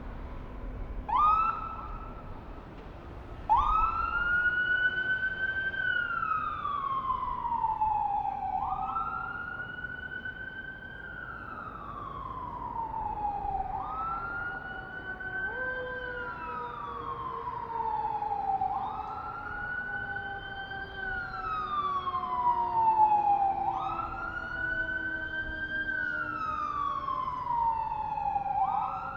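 Fire engine siren wailing: each cycle sweeps up quickly and falls slowly, repeating about every five seconds after a short first whoop about a second in. From about halfway a second, steadier tone slides slowly down beneath it, over a low city background rumble.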